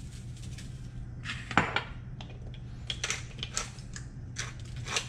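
Salt and pepper being sprinkled onto raw flounder for ceviche: a run of short, dry taps and rattles, sparse at first and then about three a second from about three seconds in.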